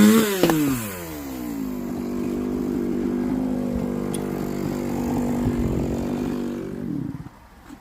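Two-stroke chainsaw coming off full throttle after a cut: the engine note drops about a third of a second in and it runs at a steady lower speed. The engine stops about seven seconds in.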